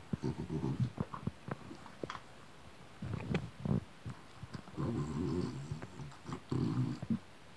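A bulldog growling and grunting in play with a kitten, in three short rough bouts, with scattered knocks and clicks of scuffling between them.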